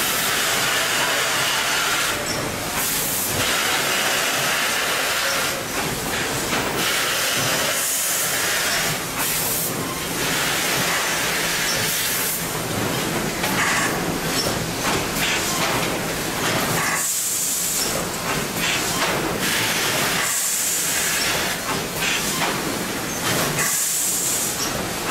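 Woven-bag packing line machinery running with a steady din, broken by repeated short bursts of hissing air every few seconds.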